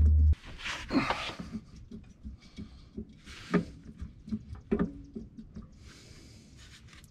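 A steady low hum cuts off abruptly just after the start. Then comes hand-tool work under a vehicle: scattered clicks, taps and a few knocks of a ratchet extension against metal, with brief rustling from clothing and movement.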